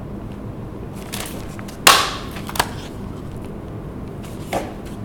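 A handheld single-hole punch snaps through a folded handmade-paper cover and the book's sheets. There is one sharp crunch about two seconds in, then a lighter click, and a softer sound near the end.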